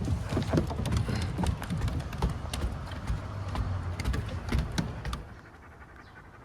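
Rapid, irregular footfalls and clicks over a low rumble, dropping to a faint background about five seconds in.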